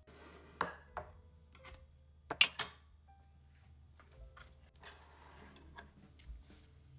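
A metal spoon stirs poppy seeds in water in a stainless-steel saucepan, scraping and clinking against the pan, with two sharp clinks about two and a half seconds in as the loudest sounds. Later come a soft rustle and a few lighter knocks of metal kitchenware.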